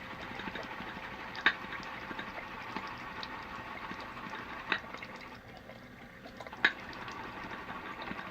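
Shaving brush swirling through thin shaving-cream lather in a bowl, a steady wet, crackly hiss as lather that has died down is worked back up. Three sharp clicks stand out, about 1.5, 5 and 7 seconds in.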